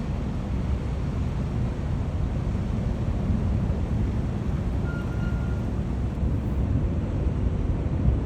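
Outdoor field recording of a steady low rumble with no clear pitch, and a brief faint high tone about five seconds in.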